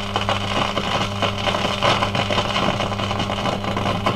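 1953 Healing 503E valve radio with its volume turned right down, its speaker giving a steady deep hum with crackling over it. The hum and noise come from the amplifier stage after the volume control, which the owner suspects is down to faulty capacitors.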